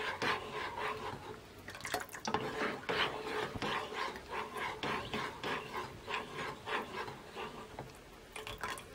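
Spoon stirring hot gelatin liquid in a saucepan: repeated swishing and scraping strokes against the pot, about two a second.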